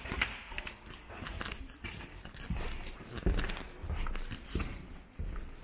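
Footsteps at a walking pace, dull thumps about one and a half a second, with light clicks and rustling between them.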